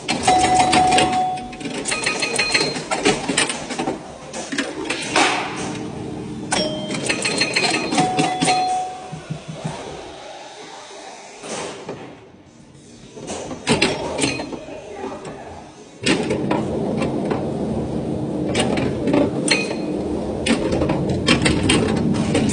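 Antique pinball machine in play: sharp clacks and quick runs of mechanical clicking, with short bell or chime tones ringing now and then. It goes quieter for a few seconds past the middle, then from about two-thirds of the way through a steady mechanical rattle carries on under the clicks.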